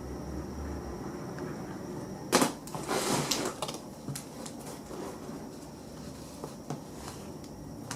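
Objects being handled indoors: a sharp knock about two seconds in, then a second or so of rustling and clattering, with a few small clicks afterwards.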